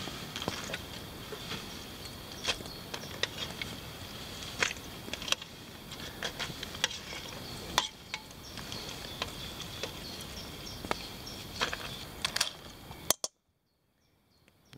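A metal ladle clinks irregularly against a cooking pot as boiled crayfish are scooped out, over a steady high insect chirring. The sound cuts off abruptly about a second and a half before the end.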